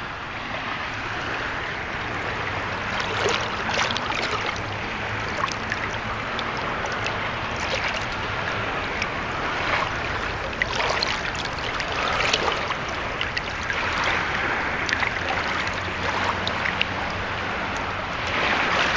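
Shallow seawater sloshing and splashing around someone wading in the surf, with small waves lapping.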